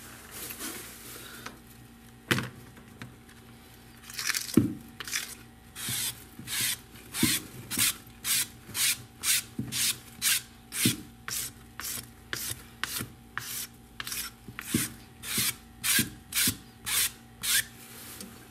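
Brisk scrubbing strokes on the Galaxy S5's phone frame, about two a second, which start about four seconds in after a single knock. This is cleaning leftover glass shards off the frame.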